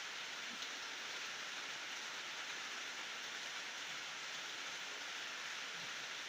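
Steady rain falling at night, an even hiss with a few faint drop ticks, no thunder.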